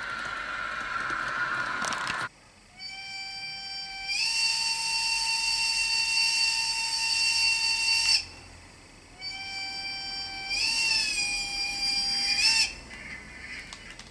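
A steady hissing running noise until about two seconds in, then a steam locomotive whistle sounds twice. The first is a long blast of about five seconds that steps up in pitch partway through. The second, of about three seconds, wavers in pitch before cutting off.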